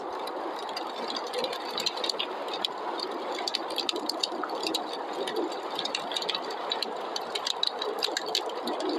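Wood fire crackling in a fireplace, with many small irregular pops and snaps, over a steady rushing noise of snowstorm wind.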